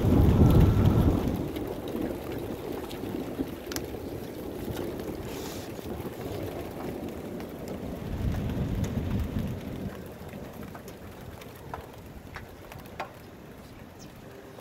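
Steady rain falling, with close drips ticking now and then and two low rumbles of thunder: a loud one right at the start and a weaker one about eight seconds in.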